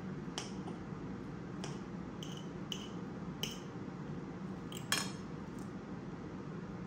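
Metal knife and fork clinking and scraping against a ceramic bowl while cutting steak. There are about eight light, ringing clinks, and the sharpest comes about five seconds in.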